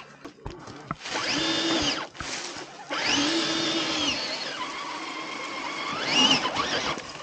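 Electric motor and gear drive of a radio-controlled scale crawler whining in three throttle bursts, each rising in pitch, holding and dropping away, as the truck climbs under load. A few knocks come near the start.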